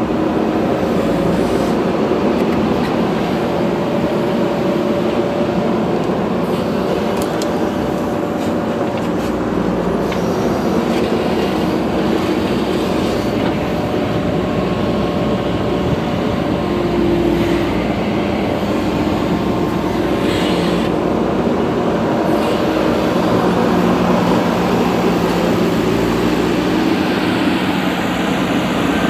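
Diesel engines of a backhoe loader and tractor running steadily while soil is dug and loaded, the engine note shifting now and then, with a deeper steady tone joining about two-thirds of the way through.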